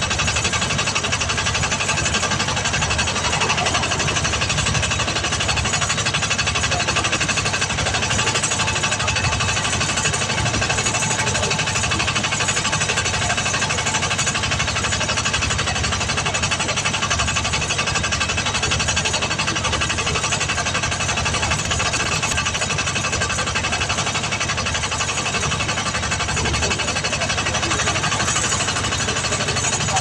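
Air compressor running steadily with a fast, even chatter while a truck tyre is inflated through an air hose.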